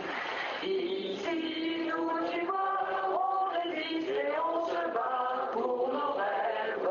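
Background music: voices singing a chant-like melody, notes held and stepping up and down.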